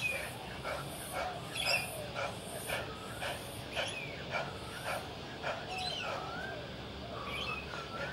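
An animal making short whining cries over and over, each one sliding up and down in pitch, several a second.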